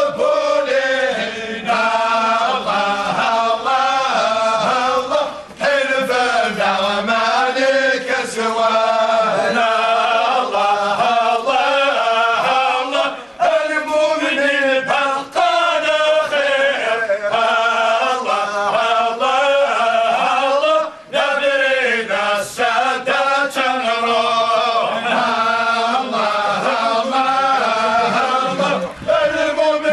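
Group of men chanting in unison as they walk in a funeral procession, a slow continuous chant with short breaks about every seven to eight seconds.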